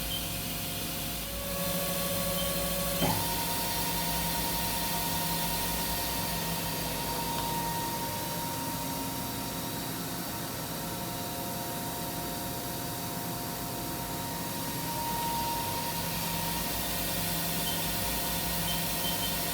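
Haas Super Mini Mill 2 vertical machining center running under power: a steady machine whine over hiss. Its pitch shifts about a second and a half in, and again with a click about three seconds in, then holds steady.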